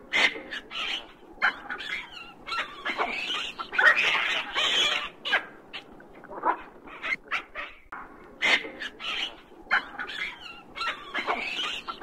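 Troop of hamadryas baboons calling: a busy, irregular run of short, high calls from several animals, overlapping and coming every fraction of a second.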